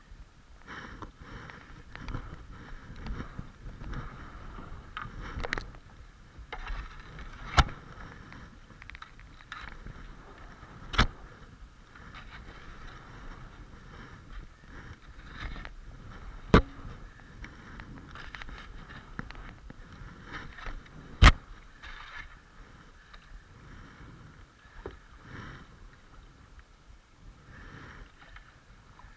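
Kayak paddle strokes splashing and dipping in flowing river water, over a steady rush of water along the hull. Four sharp knocks ring out a few seconds apart, louder than the paddling.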